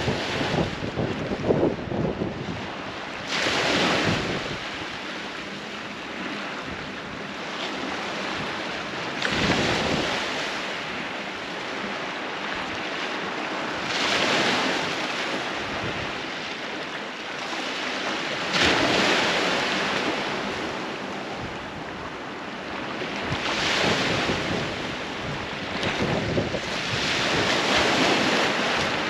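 Small waves breaking and washing up a pebble beach, the surf swelling up about every five seconds between quieter stretches of hiss.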